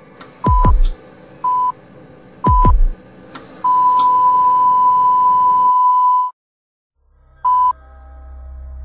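Electronic beeps in an intro soundtrack. Three short beeps come first, two of them with a deep thump that drops in pitch. A long steady beep of about two and a half seconds follows and cuts off suddenly. After a short silence there is one more short beep, and a low drone swells near the end.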